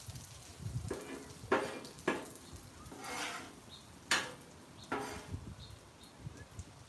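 Metal spatula scraping and clacking on the steel plate of a flat-top griddle while turning fried rice and pasta: about six short, irregular strokes, one of them a longer scrape about three seconds in.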